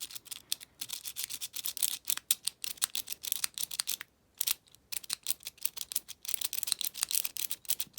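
Rapid metallic clicking and rattling of a lock pick raked in and out of the keyway of an Abus 74/40 padlock under light, bouncing tension, with a brief break about four seconds in.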